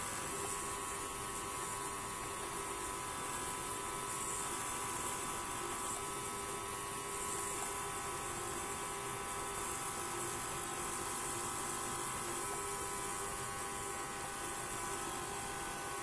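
Benchtop ultrasonic cleaner running, giving a steady high hiss with a few faint steady tones beneath it and no change throughout.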